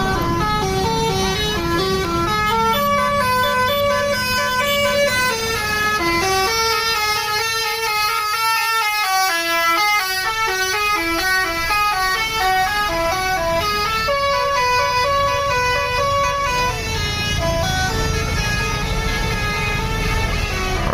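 A bus's basuri musical horn playing a long tune of short, stepped notes sounded several at a time, over the low rumble of the bus's engine.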